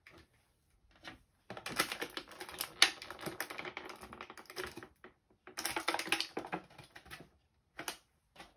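Hands rummaging through packaging and small plastic collectible figures: a fast, dense run of clicks and rustling in two spells, the first about three seconds long and the second shorter, with a single click near the end.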